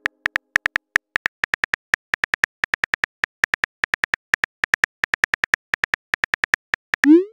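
Simulated phone keyboard taps clicking in quick, uneven runs as a chat message is typed out. Near the end comes a short rising swoosh as the message is sent.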